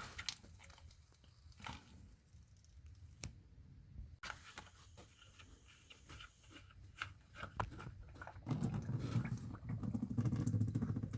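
Scattered light clicks and knocks of hands and a tool working the oil filter loose. A low rumble joins in for a couple of seconds near the end.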